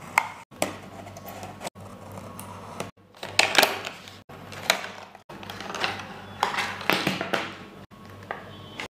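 Unboxing handling noise: a utility-knife blade scraping through the tape, then cardboard flaps and a clear plastic case clicking, scraping and crackling as they are opened. The sounds come in short stretches with abrupt cuts between them.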